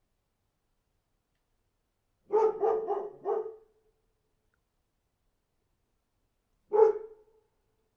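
Dog barking: a quick run of four barks about two seconds in, then a single bark near the end.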